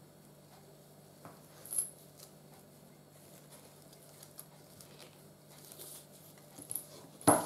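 Leather rifle slings handled in gloved hands: scattered faint clicks and clinks from their metal buckles and rivets, a sharper click about two seconds in, and one loud knock near the end.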